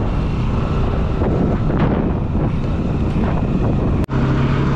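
Wind buffeting the microphone over motorcycle engine and road noise while riding. The sound cuts out for an instant about four seconds in, and a steady low hum follows.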